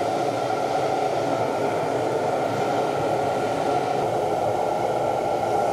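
Steady rushing hum of running shop machinery, with a few faint steady tones over it.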